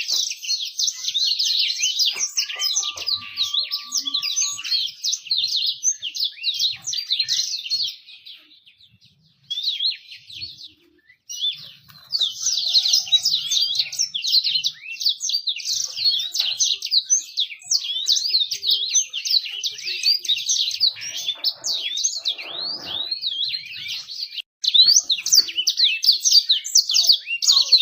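Canary singing a long, fast string of chirps and trills, with a break of a few seconds about a third of the way in before the song resumes.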